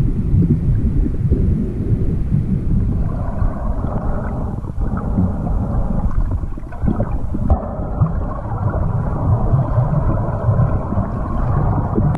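Muffled, steady low rumble of water moving past an underwater camera carried by a snorkeler. From about three seconds in, a fainter, higher hiss joins it.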